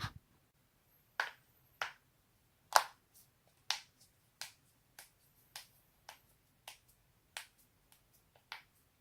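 Joints cracking: about a dozen sharp pops, one every half second to a second, the loudest nearly three seconds in.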